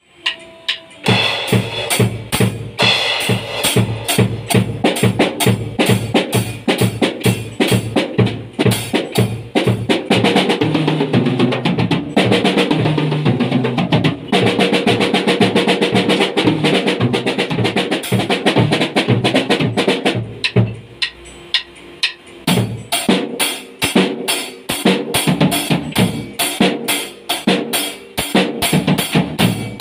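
Acoustic drum kit played solo: fast strokes on snare, toms and bass drum with cymbal crashes. It is busiest through the middle, drops to lighter, sparser strokes about two-thirds through, then picks up a steady beat again.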